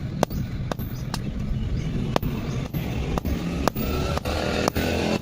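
Hammer blows on metal at an anvil, short sharp strikes about two a second, over a steady low rumble.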